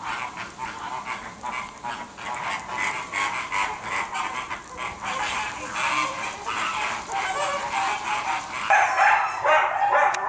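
A group of animals calling at once: a dense chorus of many overlapping, chattering calls, with stronger, lower pitched calls joining near the end.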